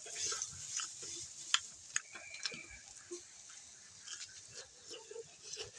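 Battered eggplant slices frying in hot oil: faint crackling with scattered sharp pops.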